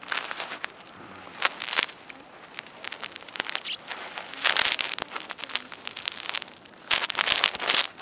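Irregular crackling and rustling close to the microphone, in two louder spells about halfway through and near the end.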